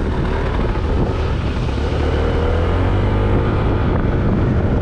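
Honda ADV scooter's single-cylinder engine running under way, with steady wind rush over the microphone.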